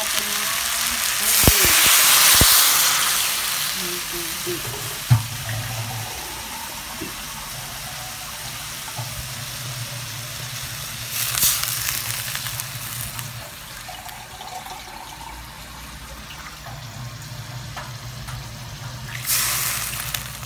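Fried tanigue pieces sizzling in a hot pot, with loud hissing surges about two seconds in, near the middle and near the end, as water is poured in over the fish.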